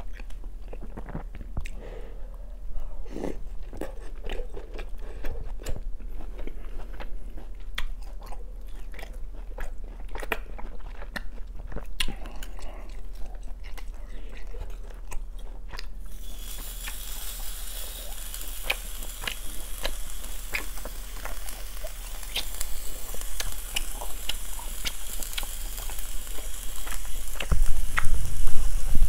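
Close-miked chewing and biting of grilled beef, with many wet mouth clicks. About halfway through, a slab of raw beef laid on a hot grill pan over a small brazier starts sizzling steadily, and the sizzle carries on to the end, with a few low thumps near the end.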